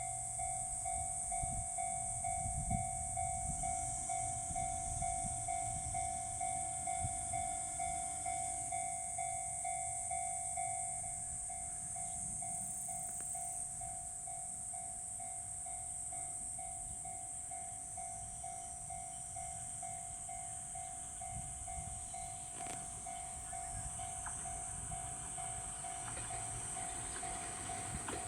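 Level-crossing alarm of the 'Tohoku' type ringing its repeated electronic tone without a break, while a train rumbles over the crossing, loudest in the first ten seconds or so.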